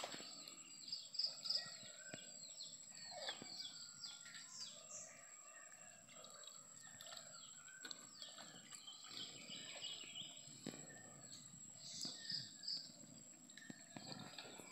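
Quiet outdoor ambience: birds chirping with many short calls, over a thin steady high whine. Now and then comes a brief, soft splash or slosh as hands work in shallow water, picking fish from a net.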